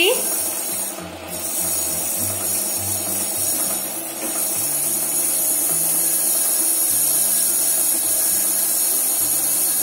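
A bobbin on a metal rod spinning against the rim of a turning ARFA sewing machine hand wheel, a steady whirring hiss as thread winds onto it, a little louder about halfway through. Low background music notes run underneath.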